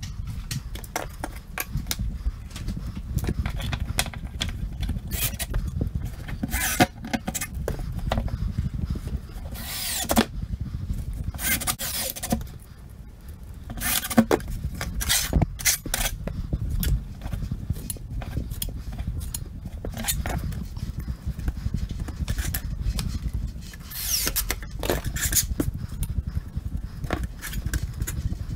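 Cordless drill driving screws into drywall in several short bursts, among clicks and clatter of tools being handled, over a steady low rumble.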